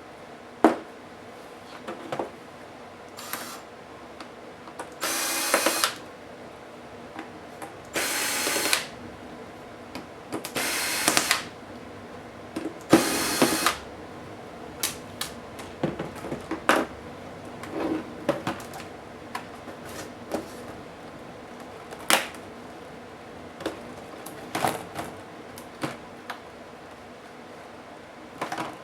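Small electric screwdriver running in four short bursts of about a second each, taking out laptop screws, amid scattered clicks and taps of screws and plastic parts being handled.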